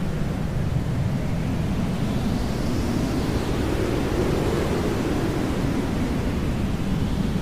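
Hair dryer blowing steadily: a constant rushing noise, heavy in the low end, with slow, gentle shifts in tone.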